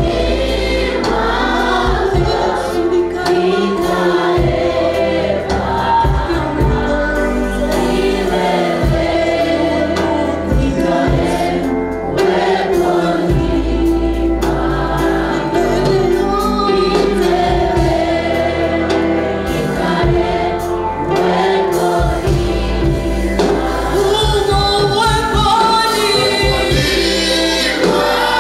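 A choir singing a gospel worship song in Swahili, with instrumental accompaniment.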